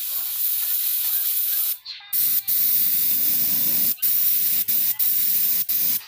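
Compressed-air spray gun with a gravity-feed cup spraying finish onto a wooden chair seat: a steady hiss that stops for a moment just before two seconds in, then runs on broken by several brief cuts.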